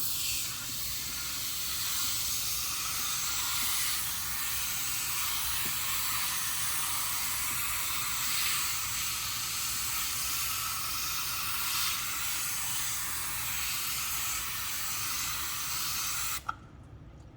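Kaboom foaming cleaner spraying in one long continuous hiss, cutting off sharply near the end with a small click.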